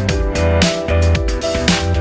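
Background music with a steady beat: an electronic track with a strong bass line.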